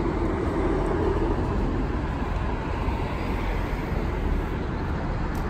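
Steady city street traffic: a continuous mix of car and bus engines and tyres passing at a busy intersection.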